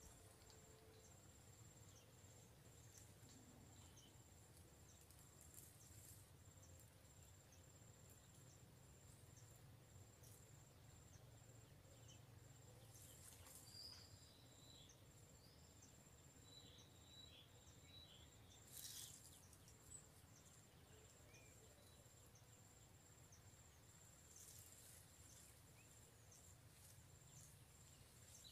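Near silence: faint outdoor ambience, with an insect's high-pitched pulsing chirp running steadily and a few faint bird chirps about halfway through.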